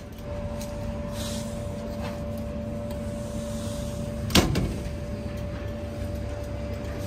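Cup-noodle vending machine giving off a steady electric hum while its hot-water compartment door is open, with one sharp loud clack of the machine's door or mechanism about four seconds in.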